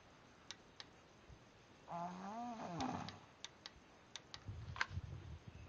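A sleeping man snoring: one voiced snore, rising then falling in pitch and about a second long, roughly two seconds in, among scattered small clicks. Low bumps near the end finish in a sharp knock.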